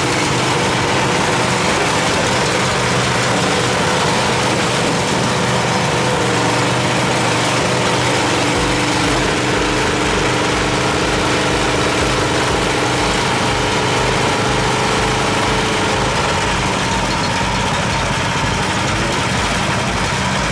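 VICSEC VC13 mini excavator's engine running steadily while the boom and bucket are worked from the joystick controls. About eight seconds in, a deeper pulsing rumble joins in and keeps on.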